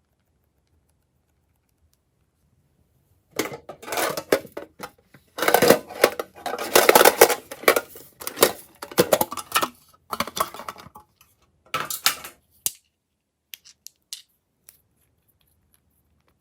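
Glossy slime being mixed and squished, making a dense run of sticky, wet clicks and crackles that starts about three seconds in, stops abruptly near two-thirds of the way through, and is followed by a few scattered clicks.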